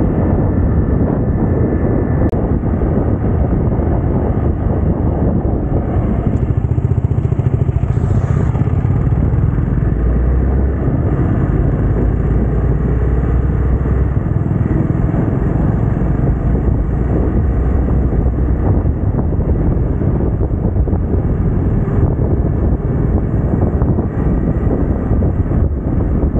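Hero Xpulse 200T's single-cylinder engine running steadily while riding, mixed with wind rushing over the camera microphone.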